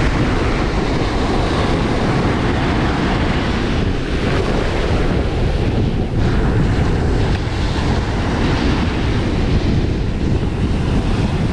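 Ocean surf washing in steadily, with wind buffeting the microphone in a heavy low rumble.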